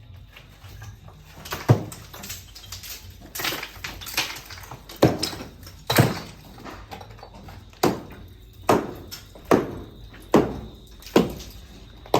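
Hand saw cutting through lumber in regular strokes, each stroke a short rasping burst, about one a second, growing steadier toward the end.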